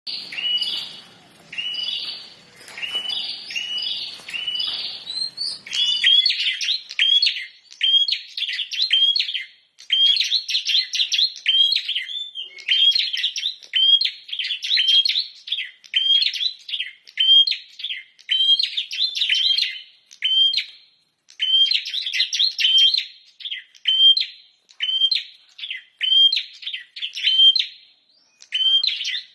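Prinia (prenjak) singing energetically: a long run of sharp, high chirps repeated about twice a second, broken up by quicker chattering phrases, pausing briefly a few times.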